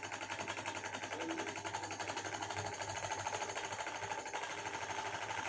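Exhaust fan motor running with a fast, even rattle over a steady low hum: excessive noise from a rotor shaft worn away on both sides at its worn bushes.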